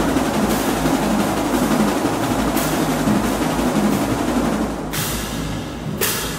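Marching drumline of snare drums, bass drums and hand-held crash cymbals playing together without a break, with cymbal crashes ringing out near the end.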